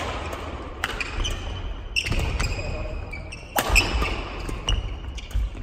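Badminton doubles rally: rackets strike the shuttlecock about once a second, each crisp hit followed by a brief ringing ping, with players' footsteps thudding on the wooden court floor.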